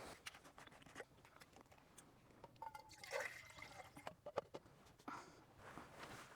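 Near silence with scattered faint clicks and soft rustles of small handling noises.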